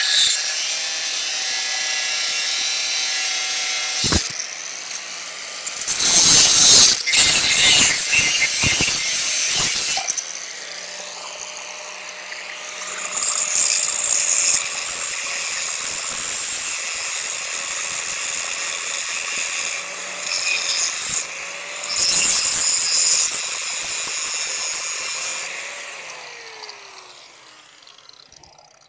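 Power tool cutting steel angle iron, loud and high-pitched, in long bursts with short breaks. Near the end the motor winds down with a falling whine and fades out.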